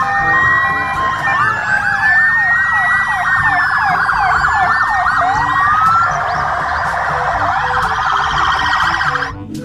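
Several police car sirens sounding at once, slow wails and quick yelps overlapping in rising and falling tones, cutting off shortly before the end.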